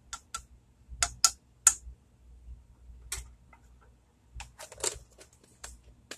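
Scattered light clicks and taps of a plastic measuring spoon against a saucepan rim and of spice containers being handled, irregular, with a quick cluster of taps a little past the middle.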